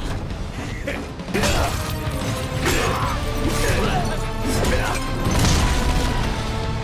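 Dramatic background music under fight sound effects: repeated hits and crashes as a metal pipe is swung into opponents in a brawl.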